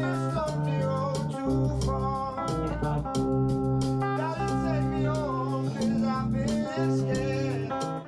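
A man singing into a handheld microphone over instrumental band backing with long held notes.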